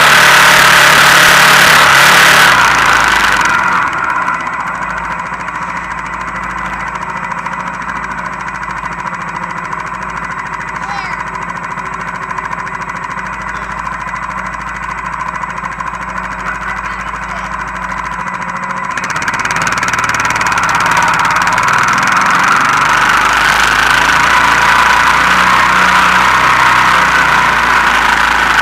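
Honda Foreman 450 ES quad's single-cylinder four-stroke engine running while it tows sleds over snow, heard close up from a camera on the quad's back. It is loud for the first few seconds, eases off about four seconds in, and picks up again about twenty seconds in.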